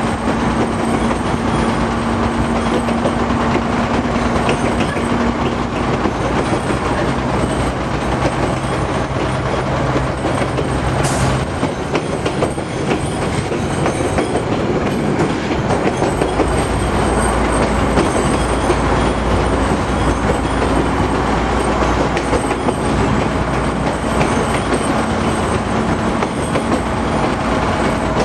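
Train running through a tunnel, heard from on board: steady rumble and wheel noise, with a low drone that shifts pitch a few times.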